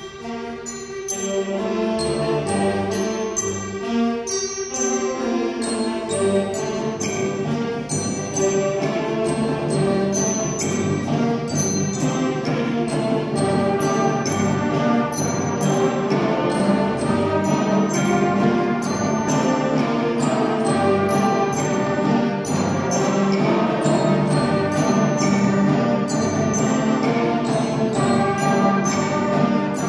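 Sixth-grade concert band playing a fast piece, clarinets among the players. The sound is thinner at first, and the full band with its low instruments comes in about six seconds in and plays on.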